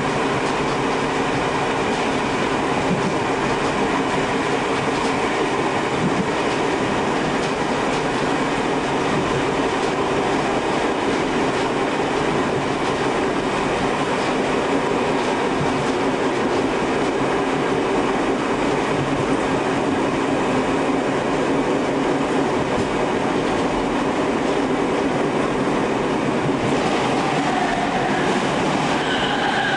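Tobu 5700-series electric train running at speed, heard from the front cab: a steady rumble of wheels on the rails with a hum from the running gear. Near the end the sound swells and pitched tones come in as another train runs past alongside.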